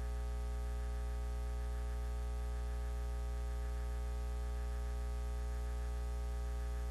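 Steady electrical mains hum with a buzzing edge from the microphone and sound system, unchanging in pitch and level.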